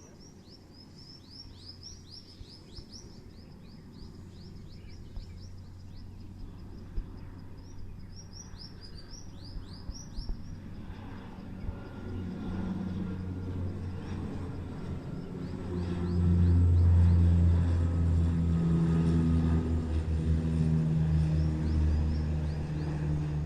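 Small birds chirping in quick falling notes over a faint rumble; from about halfway the engine drone of a passenger plane taking off swells, loudest a few seconds later and staying loud to the end.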